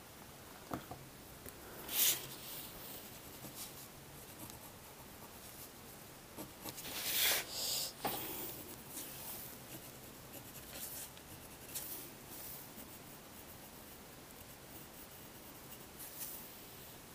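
Pencil scratching on paper in short, scattered strokes, the loudest about seven seconds in.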